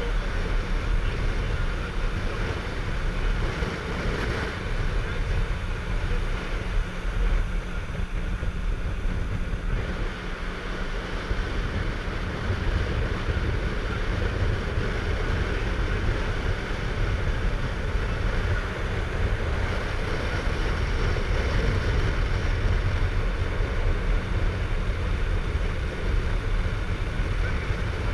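Boat's engine running steadily while under way, with wind on the microphone and water rushing past the hull.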